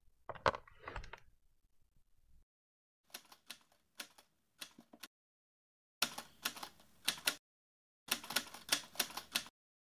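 Typing on a laptop keyboard: three short runs of key clicks with pauses between them. A couple of sharp knocks come just before, about half a second in.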